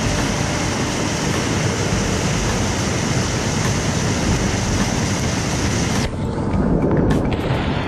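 Waterfall pouring over rock, heard up close as a steady, dense rush of falling water. About six seconds in the sound turns muffled and deeper, the microphone right in the spray.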